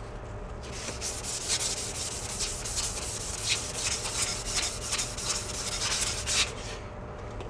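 A sandpaper strip is pulled back and forth around a crankshaft journal of a 1941 Farmall A engine, shoe-shine style, making a repeated rasping rub that starts about a second in and stops near the end. The journal is being polished to knock off high spots and imperfections before new bearings go in.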